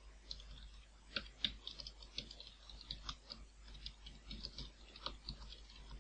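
Typing on a computer keyboard: a faint, irregular run of quick keystrokes.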